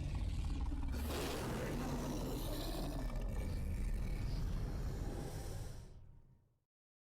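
A long, noisy rumbling sound effect with hiss on top and no clear pitch, growing louder about a second in and fading out near the end.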